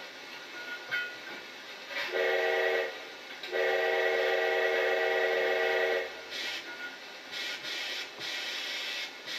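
Steam locomotive whistle blown twice, a short blast and then a long one, followed by a few short hissing bursts.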